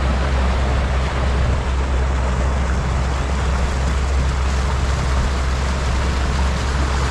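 Motorboat engine running steadily while the boat travels on the river, with rushing water and wind noise.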